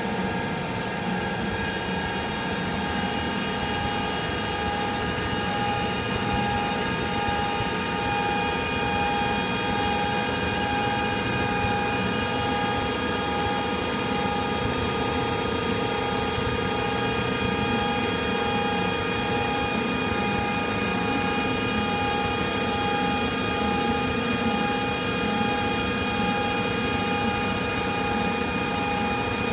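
Darwin 8HC lathe running steadily under power: an even motor hum with several constant whining gear tones on top, one of them faintly pulsing.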